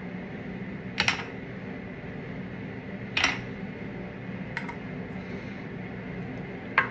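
A few short, sharp clicks and taps, four in all spaced a second or two apart, from a setting powder compact and brush being handled.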